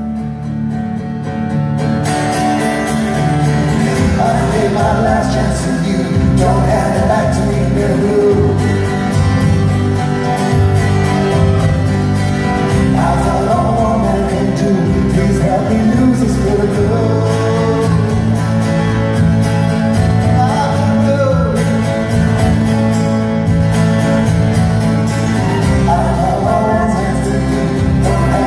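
A man singing live with his own strummed acoustic guitar, a solo folk-rock performance; the strumming becomes fuller about two seconds in.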